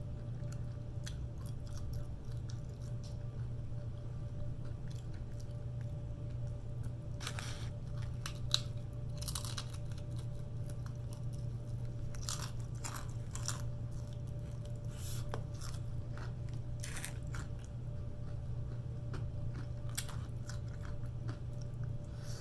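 Close-up chewing and crunching of Chinese takeout food, with scattered crisp crunches through the middle of the stretch over a steady low hum.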